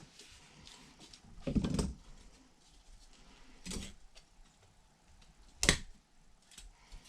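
Plastic model-kit parts being handled and pressed together: a couple of short rustling scrapes, then a single sharp plastic click about two-thirds of the way through.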